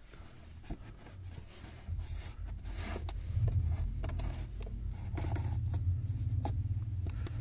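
Pleated cabin air filter being slid into its plastic housing: scraping and rustling of the filter's edge against the plastic, with scattered small clicks over a steady low rumble.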